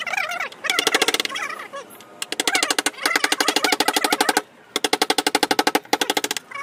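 Hammer tapping a carving chisel into teak wood in quick, evenly spaced strikes, in several bursts with short pauses between them.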